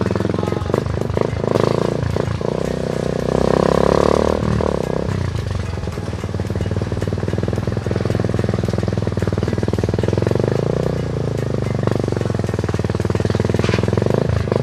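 Motorcycle engine running steadily with a fast, even firing beat, rising briefly in level and pitch a few seconds in.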